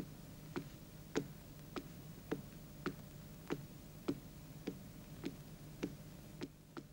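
A woman's footsteps on a stone floor at an even walking pace, sharp clicks a little under two a second, over a low steady hum.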